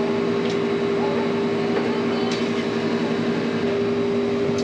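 Steady electric hum of a running refrigeration condensing unit, holding two constant tones, with a few faint clicks as the copper tube and tube bender are handled.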